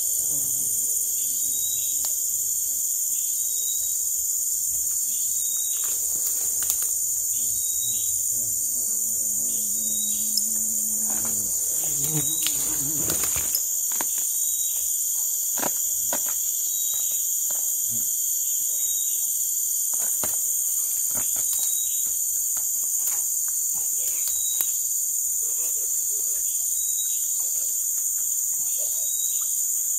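Dense chorus of forest insects shrilling steadily at a high pitch, with another insect call pulsing about once a second beneath it. Scattered light clicks are heard throughout.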